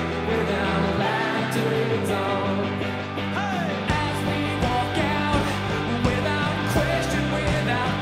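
Live rock band playing, with bass guitar and a sung vocal; about four seconds in the drums come in with a steady beat.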